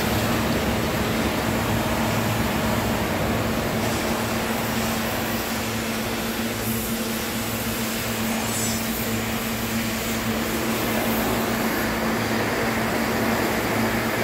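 Steady machinery hum with an even fan-like rushing noise, the sound of a running workshop machine such as a welding machine's cooling fan or the shop ventilation.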